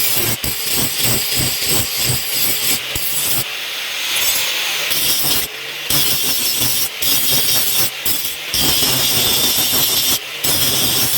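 Steel being worked by hand: rasping, scraping strokes on a leaf-spring knife blade, fast and regular at first, stopping and restarting abruptly several times.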